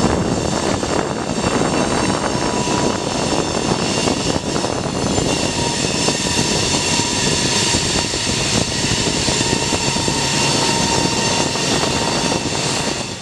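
Diesel locomotive working under load as it shoves a long cut of freight cars, a steady engine drone with a high whine over it.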